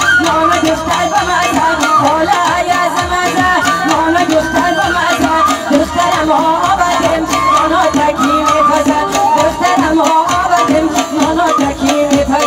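Live Tajik wedding band music: a doira frame drum keeping the beat under keyboard and melody instruments, with a woman singing into a microphone.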